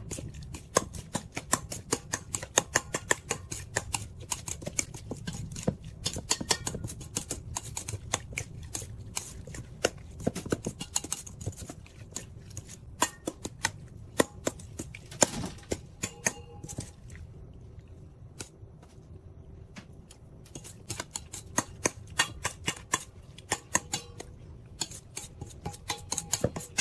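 Metal spoon clinking and scraping against a stainless steel mixing bowl while stirring ceviche: rapid, irregular clicks that thin out for a few seconds about two thirds of the way through, then pick up again.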